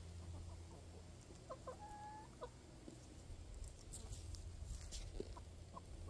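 Domestic chickens clucking faintly: a few short calls about two seconds in and a few more around four to five seconds, over a low steady hum.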